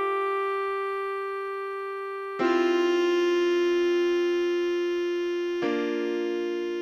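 Synthesized backing-track music: one long held melody note over sustained keyboard chords. New chords strike about two and a half seconds in and again near the end, each fading slowly.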